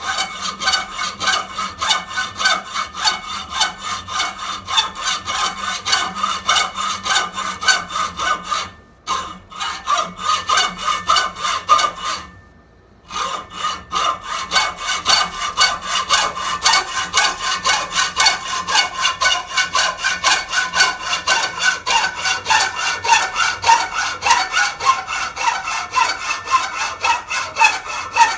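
Hand hacksaw cutting through a steel shotgun barrel held in a vise, in fast, even back-and-forth strokes with a rasping metal scrape. The sawing stops twice briefly, about nine seconds in and again around twelve seconds in, then carries on.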